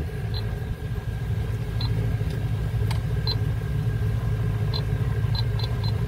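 Refrigerant leak detector in heated diode mode giving short high beeps, spread out at first and coming faster near the end as its probe picks up refrigerant leaking at a valve core. Under it is a steady low hum of running scroll compressors.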